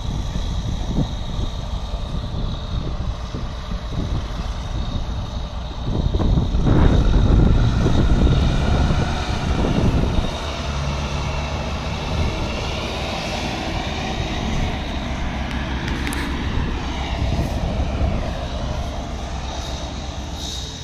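Heavy diesel engines of the K-700A tractor and Manitou telehandler running under load while they drag out the bogged trailer. They swell louder for a few seconds about six seconds in, then settle to a steady drone with a whine that rises and falls.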